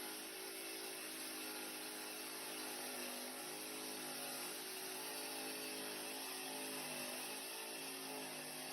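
A power tool's motor running steadily, a humming whir with several sustained tones over a hiss.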